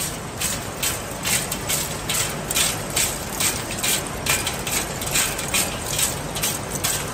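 Small shredded aluminium chips clattering as they are thrown onto the concrete floor and the pile around a steel drum, in irregular metallic rattles about three times a second. Under them is the steady running of the hammer mill shredding line.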